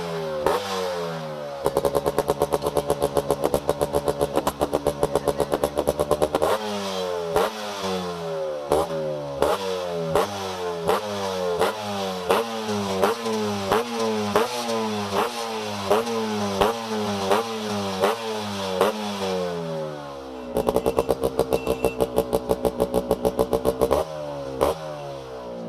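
Yamaha RX100's two-stroke single-cylinder engine being revved through its exhaust. The revs are held high for a few seconds, then blipped over and over, about twice a second, each blip falling away, then held high again near the end.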